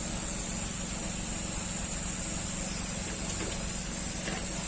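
Hot air rework gun blowing steadily: a constant fan whir with a high airy hiss, as it is readied to desolder a laptop hard drive connector.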